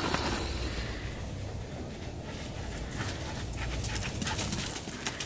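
A dog panting.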